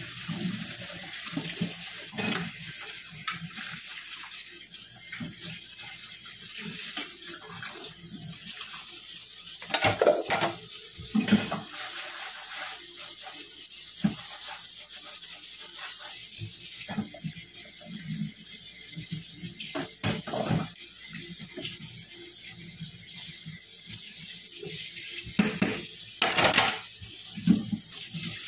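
Kitchen tap running into a sink while food is washed by hand, with several loud knocks and clatters, mostly in the middle and near the end.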